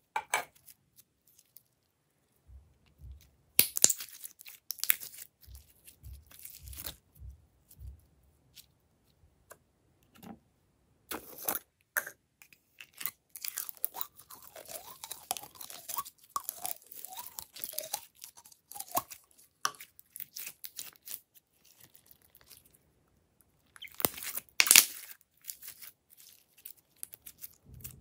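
Hands squeezing, poking and stretching glitter slime and clear jelly slime: irregular sticky crackles, pops and squishes, with louder bursts of crackling a few seconds in and near the end.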